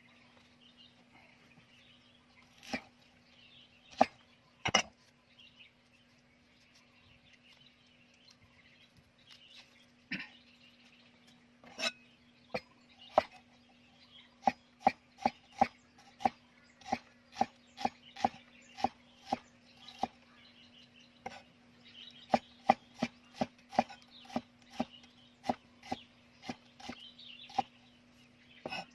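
Knife chopping on a wooden surface: a few separate knocks at first, then a steady run of about two to three chops a second through the second half. A faint steady hum runs underneath.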